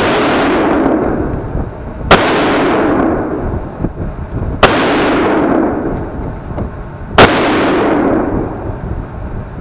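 Four loud gunshots, about two and a half seconds apart, each ringing out and dying away over about a second in the reverberant hall of an indoor shooting range.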